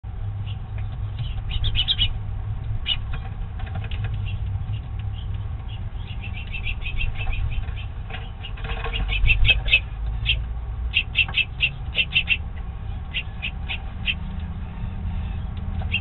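Small songbirds chirping in quick runs of short, high notes, coming in bursts throughout, over a steady low rumble.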